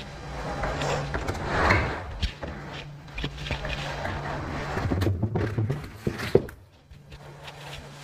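A dark plastic slatted bench being grabbed and dragged across a tile floor, with scraping, rattling and clunking, and a sharp knock about six seconds in as it is set down. A steady low hum runs underneath.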